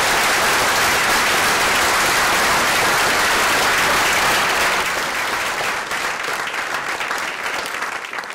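Audience applauding, many hands clapping at once, dense and steady at first, then thinning out and fading over the last few seconds.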